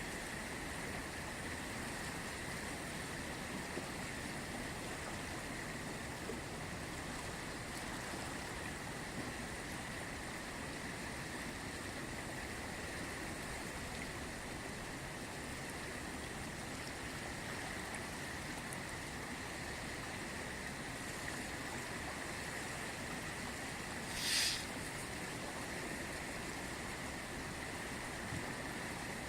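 The Ganges river flowing: a steady rush of water. About 24 seconds in, one brief louder noise stands out over it.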